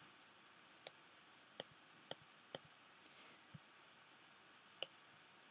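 Faint clicks of a computer mouse, about seven at uneven intervals, over near-silent room tone.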